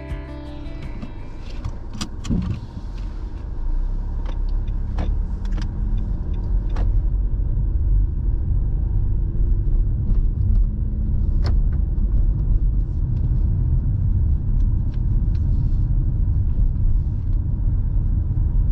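Car road noise heard from inside the car as it pulls away and picks up speed: a low rumble that grows louder over the first several seconds and then holds steady. A few sharp clicks come through along the way.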